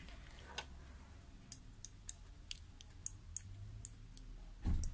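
Faint, scattered light clicks of small metal earring posts being handled and touched against a magnet, testing whether they are steel. A short, louder knock comes near the end.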